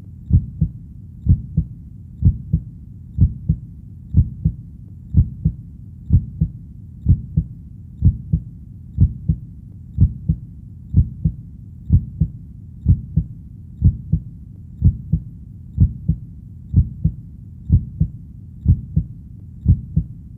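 Heartbeat sound: a steady double thump, lub-dub, about once a second over a low continuous rumble.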